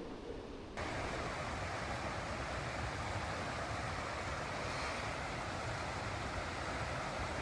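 Steady rushing of a mountain stream's water over rocks. It cuts in abruptly under a second in and then holds even.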